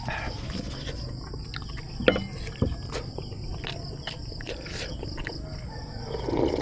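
Close-up eating sounds: mouth clicks and a spoon set down with a sharp clack about two seconds in. Near the end comes a loud slurp of tinola chicken broth drunk from a glass bowl. Insects keep up a steady high drone behind.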